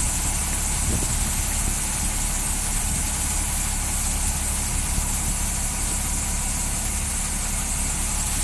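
Industrial truck washing machine running: a steady low machine hum under a constant high hiss, unchanging throughout.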